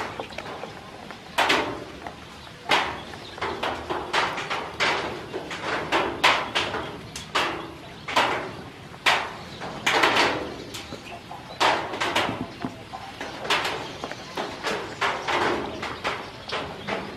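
Ducklings pecking at a plastic feeder and tub: their bills tap on the plastic in irregular sharp clicks and knocks, several a second, some louder than others.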